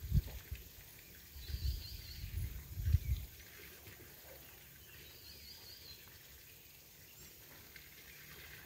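Quiet outdoor ambience: a bird twice gives a short high chirping phrase, a few seconds apart, over low rumbling on the microphone during the first few seconds.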